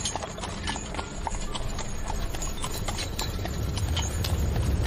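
Horses' hooves clip-clopping at a brisk pace as they pull a horse-drawn carriage, several hoofbeats a second, over a low rumble that grows louder toward the end.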